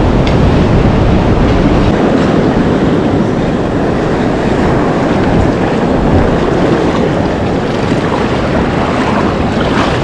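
Shallow surf washing and churning around the legs, with wind buffeting the microphone, steady throughout.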